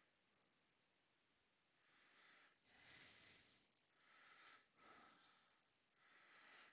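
Near silence, with five faint, soft hissing sounds about half a second each in the second half.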